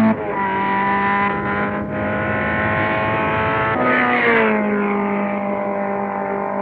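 Lotus 23 sports racing car engine running hard at high revs. Its note drops in pitch at the start and settles. About four seconds in it rises briefly and falls again as the car goes by.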